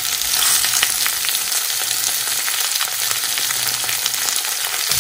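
Sliced tomatoes freshly added to hot oil and fried onions, sizzling in a non-stick frying pan: a steady, loud sizzle full of small crackles.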